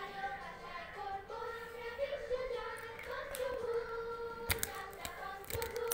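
A child's voice singing a slow melody in long held notes, with a few sharp clicks about four and a half seconds in and again near the end.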